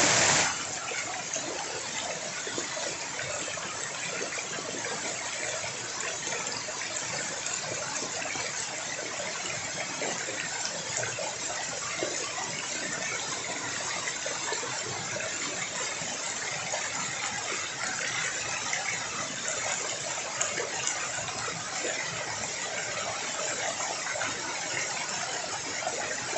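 Small waterfall pouring into a rocky pool, a steady rushing of falling water, louder for the first half-second.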